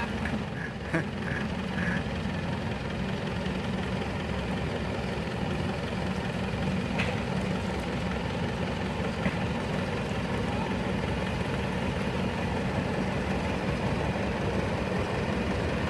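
An engine running steadily, a low even drone with a couple of faint clicks.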